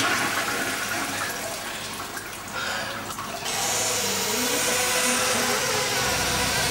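Toilet flushing: a rush of water that turns to a steadier, brighter hiss about three and a half seconds in. A low hum comes in near the end.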